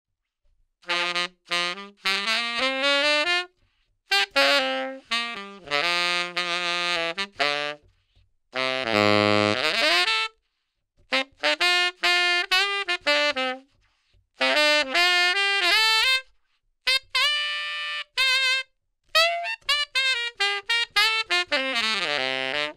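Solo tenor saxophone (Amati Superclassic with a Ponzol mouthpiece) playing quick runs in short phrases with brief pauses between them, including a low note that slides upward about nine seconds in. It is heard through a Sennheiser e608 dynamic clip-on microphone.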